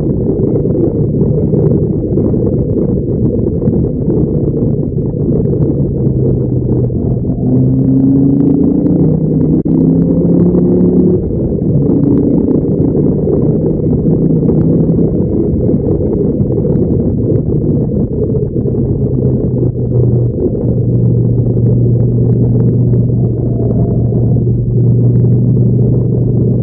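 Dodge Viper SRT10's V10 engine running hard on track, heard muffled under wind and road noise. Its pitch climbs as the car pulls down the straight, then drops to a steady lower note about two-thirds of the way in as the car slows for a corner.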